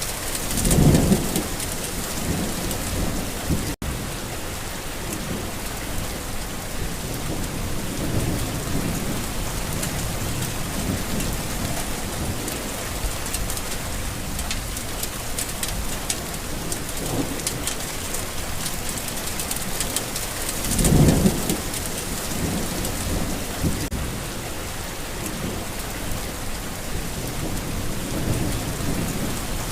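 Steady rain falling on a garden, with rolls of distant thunder: a loud rumble about a second in and another about twenty seconds later, with fainter rumbles between. A split-second break in the sound about four seconds in.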